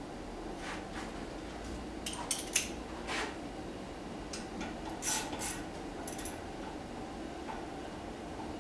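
Light metallic clinks and taps of small metal parts being handled, scattered through the first six seconds and loudest about two and a half seconds in, over a steady low hum.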